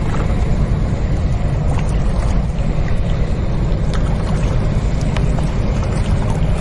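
Container ship on a river running past with a steady, loud, low engine rumble, with faint water splashing and lapping over it.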